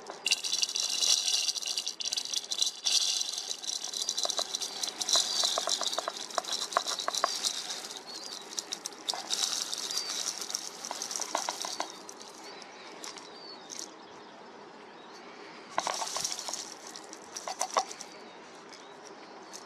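Small birds at a feeder, wings fluttering in quick flurries of strokes with high chirping and chattering. Busy for most of the first twelve seconds, then quieter, with two short flurries near the end.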